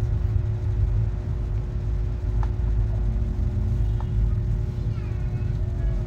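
Steady low rumble with a constant hum, and two faint clicks about two and four seconds in.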